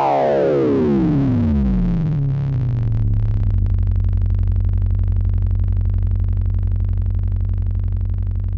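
Alesis Andromeda analog synthesizer patch with audio-rate modulation: several tones glide steeply down in pitch together over the first two seconds or so and settle into a sustained low buzzing drone with a fast flutter.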